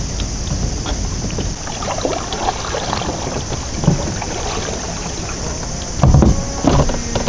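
Wind rumbling on the microphone on open water, with scattered faint clicks and a few louder thumps about six seconds in.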